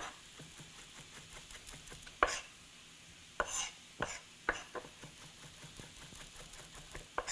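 Chef's knife chopping fresh ginger on a cutting board: a run of light, quick taps with a handful of sharper knocks spaced irregularly.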